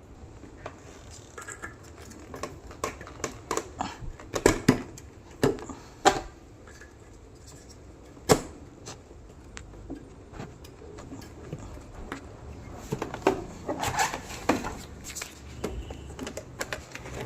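Irregular clicks, clinks and knocks of tools and small hard parts being handled during repair work, with a run of sharper knocks about four to six seconds in, a single knock near eight seconds, and a busier cluster around fourteen seconds.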